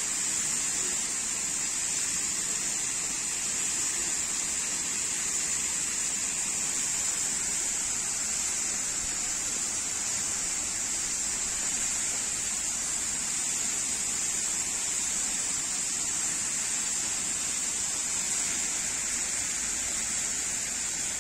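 Tall fountain water jets spraying into the air and falling back onto the water, a steady hissing rush.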